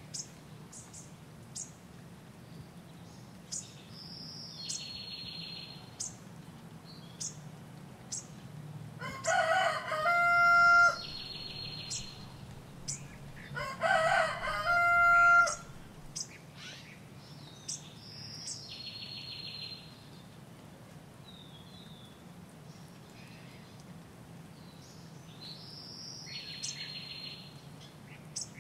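A rooster crowing twice, about nine and fourteen seconds in, each crow a long call that holds its pitch at the end. Small birds chirp throughout over a faint steady low hum.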